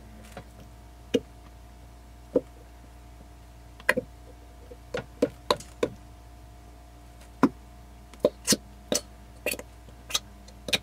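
Glittery slime squeezed out of a plastic container into a steel bowl, making short wet pops and squelches that sound "so weird". The pops come about a second apart at first and more often in the second half.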